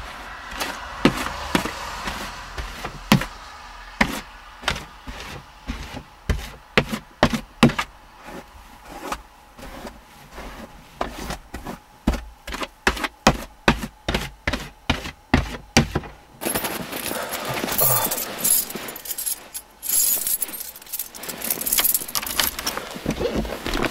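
Snow being cleared off a car's windshield and body: a run of sharp knocks and taps, one or two a second, then from about sixteen seconds in a steady rustling, scraping noise. The engine is not running.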